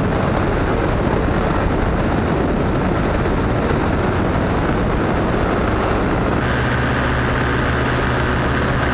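Steady, loud wind rush over a camera mounted on a hang glider in flight. Near the end a steady hum with a few held tones joins the rush.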